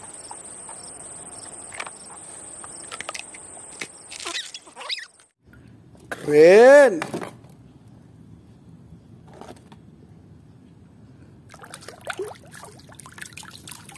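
A steady high-pitched whine with faint rustling for about the first four seconds, then from about eleven seconds water sloshing and splashing as a hand scrubs a toy in a tub of muddy water.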